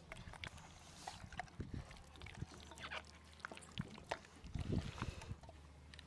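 Wet squelching and smacking of bare hands working thick spice paste into a whole raw chicken in a steel bowl: irregular squishes and small clicks, with a louder run of squelches a little before the hands let go.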